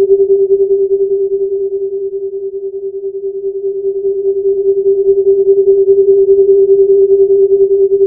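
A steady, mid-pitched droning tone over a soft hiss, fluttering with a rapid pulse. It dips slightly in loudness in the middle and swells again.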